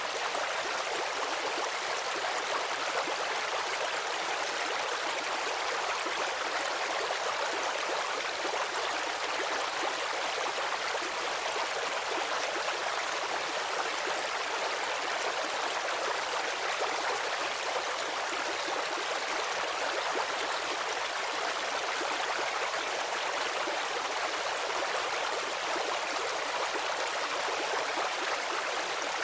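A stream's running water, a steady rushing and babbling with no pauses or distinct splashes.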